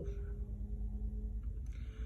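Low steady hum with a faint steady tone over it: background room tone, no distinct event.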